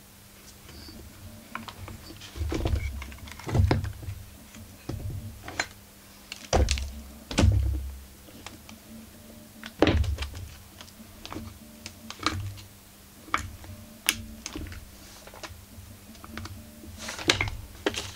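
Irregular knocks, clunks and clicks of metal tools and chainsaw parts being handled and set down on a workbench, with a few heavier thuds among lighter clicks. A faint steady low hum runs underneath.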